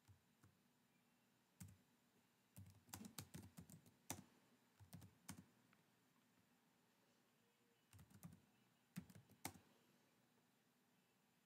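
Faint typing on a computer keyboard: short runs of key clicks separated by pauses of a second or more.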